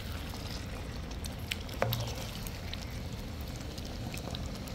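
Scattered small clicks and crackles from food being stirred in a frying pan, over a steady low background rumble.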